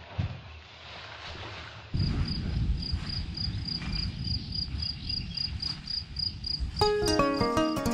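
A cricket chirping steadily, about four short high chirps a second, over a loud low rumbling noise; music comes in near the end.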